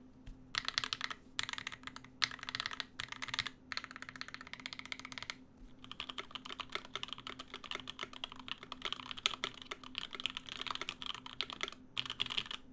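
Fast typing on a custom mechanical keyboard, a DeltaBlade case with lubed JWK Tourmaline v2.5 switches and GMK doubleshot ABS keycaps, in several short bursts with brief pauses, then a long unbroken run from about halfway. A low steady fan hum sits underneath.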